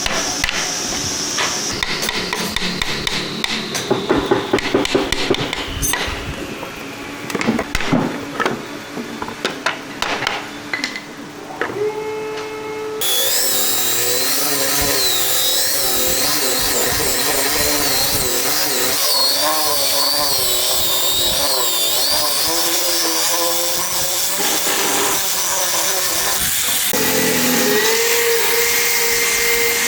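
Woodworking tool sounds: sharp knocks and tapping for about the first thirteen seconds, then a power tool starts suddenly and runs steadily, its pitch wavering as it works.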